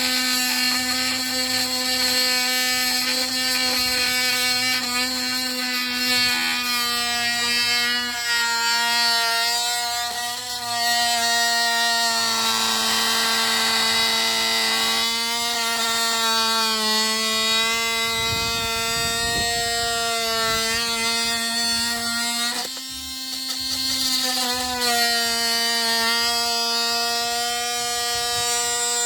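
Cordless oscillating multitool with a saw blade running steadily, a high even buzz, as it cuts through the end of a piece of wood. About halfway through the buzz turns rougher for a few seconds as the blade bites, and near the end it dips briefly before running on.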